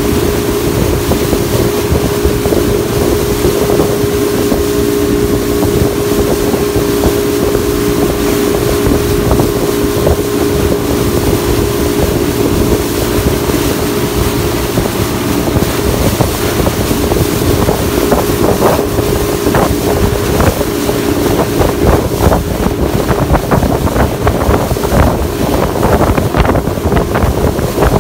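Motorboat engine running steadily under way, with wind buffeting the microphone. Water slaps and splashes against the hull, more and more often in the second half.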